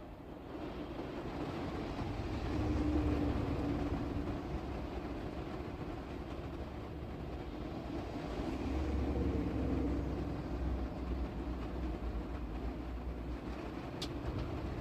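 Flatbed semi truck driving on the road: a steady low engine and road rumble that swells a little about three seconds in and again about nine seconds in.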